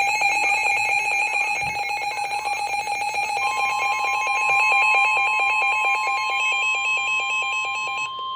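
Emergency Alert System alarm tones: a rapidly pulsing electronic alarm tone, joined about three seconds in by a steady higher tone that carries on alone after the pulsing stops near the end.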